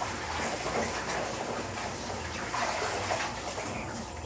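Water heating in a stainless steel stockpot over a lit gas burner: a steady hiss with small irregular crackles.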